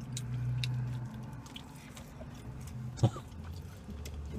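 Close chewing and small mouth clicks as French fries are eaten, over a steady low hum. About three seconds in, a short vocal sound stands out as the loudest moment.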